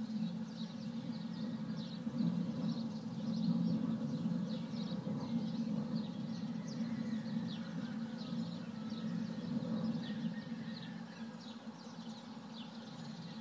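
Birds chirping over and over in short, quick high notes above a steady low hum, picked up from inside a mailbox.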